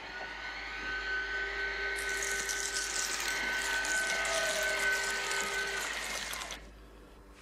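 Surgical bone drill running on a patient's skull: a steady whine that grows louder, with a harsher grinding added from about two seconds in, then cuts off suddenly about six and a half seconds in.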